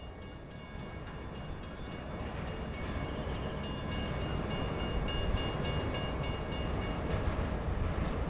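Approaching New Jersey Transit train hauled by an ALP-46 electric locomotive, not yet in sight: a low rumble that grows steadily louder, with a few high steady tones over it.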